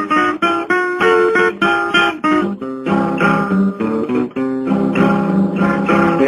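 Acoustic guitar playing an instrumental passage of strummed chords and picked notes.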